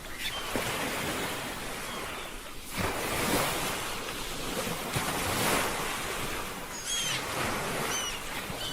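Ocean waves washing on a shore, with a louder wave surging in about three seconds in and again about five seconds in. A few short high chirps sound near the end.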